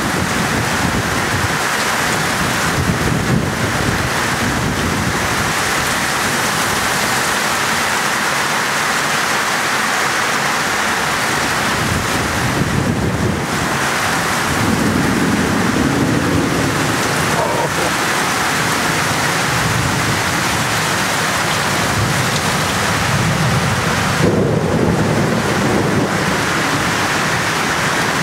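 Heavy thunderstorm downpour: a steady hiss of pouring rain, with low rumbles of thunder about halfway through and again near the end.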